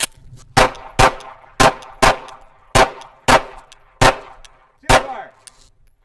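Eight handgun shots over about four and a half seconds, mostly in quick pairs, each followed by a short echo.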